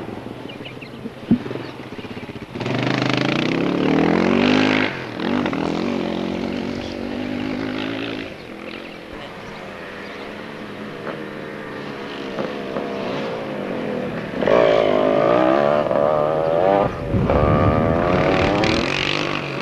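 A motor engine revving, its pitch rising and falling as it speeds up and eases off. It is loudest for a couple of seconds about two and a half seconds in, and again in the last five seconds. A short sharp click comes just over a second in.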